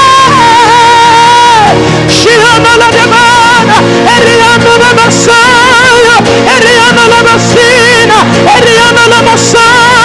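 Live worship music: a long held high note gives way about two seconds in to a wavering, ornamented melody line over sustained backing chords.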